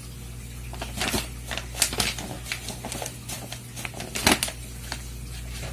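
Brown paper bag rustling and crinkling in irregular crackles as a cat moves its head and paws about inside it, with a few sharper crackles, the loudest about four seconds in.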